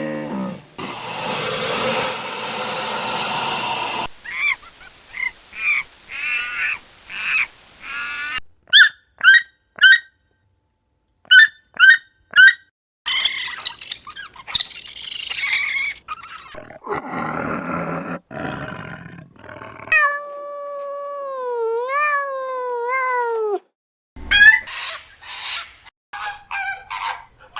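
A string of different animal calls spliced one after another, each clip starting and stopping abruptly: short sharp high chirps, a long call that wavers and slides down in pitch, and quick repeated calls near the end.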